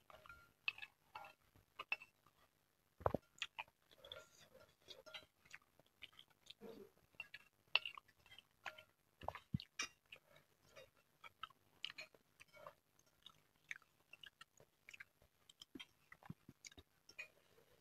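Close-miked chewing of bakso meatballs: soft wet mouth smacks, with scattered sharp clicks of a plastic spoon and fork against a glass bowl.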